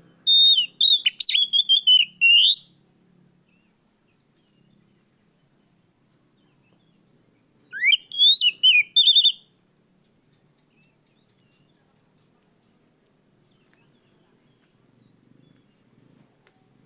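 Oriental magpie-robin singing two loud phrases of quick whistled notes and rising slurs: one right at the start lasting about two seconds, another about eight seconds in. Faint cricket chirps carry on in the gaps.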